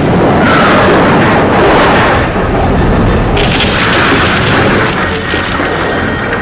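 Loud explosion sound effects from a kaiju film: deep rumbling booms that swell about half a second in and again a little past three seconds.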